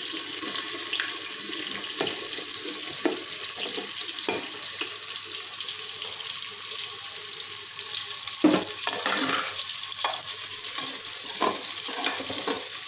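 Sliced onions sizzling in hot oil in an aluminium pressure cooker as they are tipped in from a plate and stirred: a steady frying hiss. Scattered knocks from the plate and spoon against the pot, the loudest about eight and a half seconds in.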